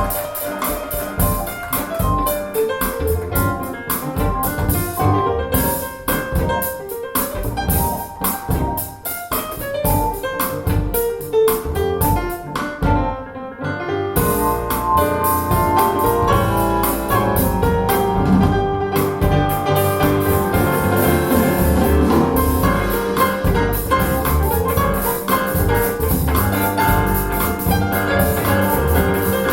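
Music played through a pair of Bowers & Wilkins 607 bookshelf speakers. It thins out briefly about 13 seconds in, then plays on fuller and steadier.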